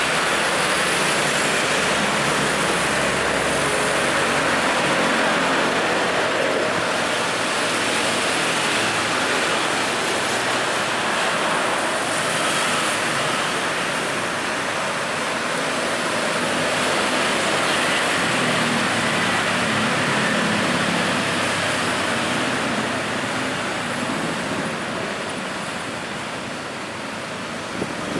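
Busy road traffic: a steady, continuous wash of passing vehicles' tyre and engine noise, easing slightly near the end.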